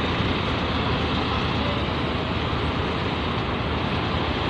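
Large cargo trucks' diesel engines running steadily close by, an even rumble with no sudden events.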